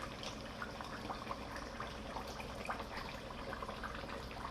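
A pot of food bubbling on the stove: a steady hiss scattered with small irregular pops.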